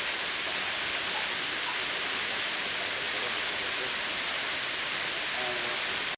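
A steady, even hiss of rushing noise, with a couple of faint short chirps about two seconds in and near the end.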